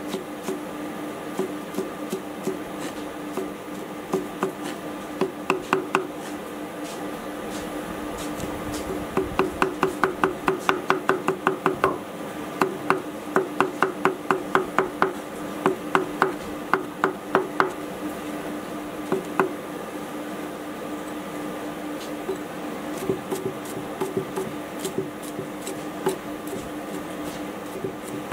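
Chinese cleaver chopping spring greens on a wooden chopping block: sharp knocks, a few at a time at first, then fast even runs of about four a second in the middle, thinning out again near the end.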